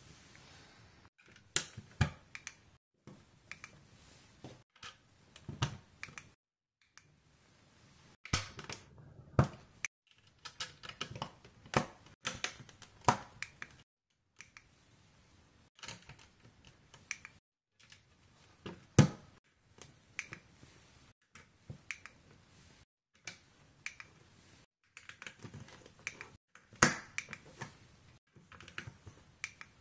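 LEGO pieces handled and snapped together: irregular sharp plastic clicks and taps as dark grey tiles are pressed onto tan baseplates, the loudest click about two-thirds through. Short dead-silent gaps break up the clicking.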